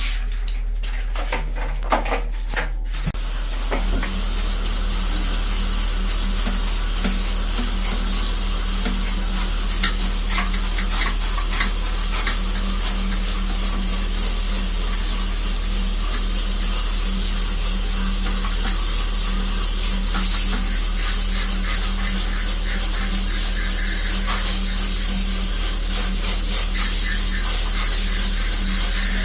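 Steady hiss of water spraying from a motor-driven pressure sprayer, with the sprayer's motor humming under it, washing air-conditioner parts; it settles in about four seconds in.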